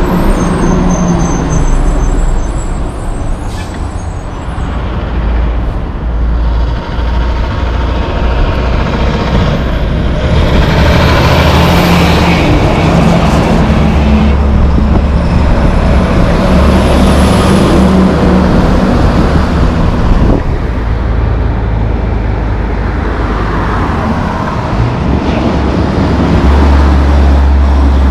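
Heavy diesel semi trucks hauling loads of logs and lumber passing one after another, engines running under load with deep rumble and tyre noise, swelling loudest as each goes by.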